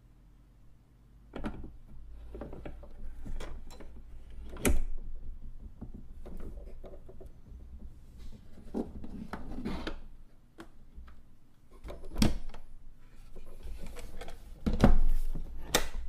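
Vinyl record surface noise: irregular crackles and sharp pops over a low rumble, starting about a second in, with a few loud pops.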